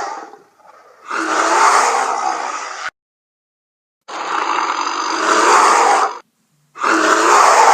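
A series of bear roar sound effects made for the extinct giant short-faced bear Arctotherium. One roar trails off at the start, then come three more. The first two last about two seconds each and cut off abruptly into dead silence, and the third is still going at the end.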